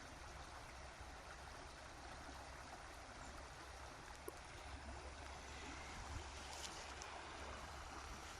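Faint, steady babbling of a stream.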